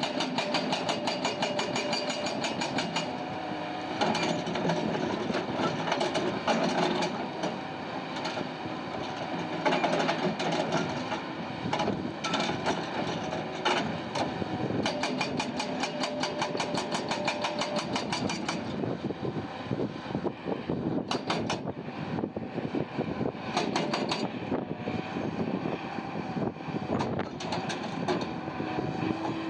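Heavy machinery working at a rock crusher: engines running steadily under dense clattering, with many sharp knocks of rock and metal.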